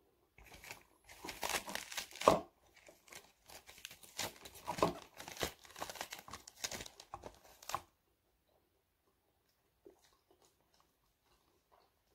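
Crisp cabbage leaves being torn and snapped off by hand: a run of crackling, ripping tears that stops about eight seconds in, followed by a few faint clicks.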